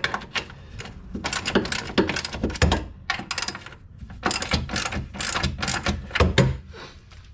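Hand ratchet wrench clicking in two quick runs as it turns a spring-plate bolt on an air-cooled Porsche 911's rear suspension.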